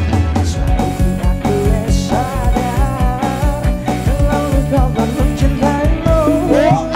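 Live rock band playing: electric guitar over a steady drum beat, with bending guitar notes.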